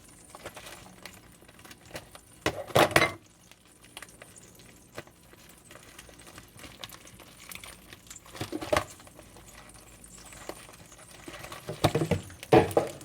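Plastic package of sliced deli ham being handled and pried open on a kitchen counter: a few short bursts of crinkling and clattering, the busiest cluster near the end.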